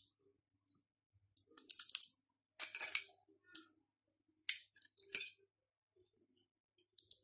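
Kitchen scissors biting through the shell of a steamed mud crab claw: a series of separate sharp crunches and cracks a second or so apart as the shell splits.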